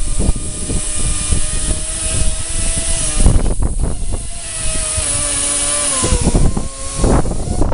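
Challenger MVL7 mobile column truck lift's three-phase electric motors running with a steady whine that dips in pitch a little and drops out briefly about three seconds in.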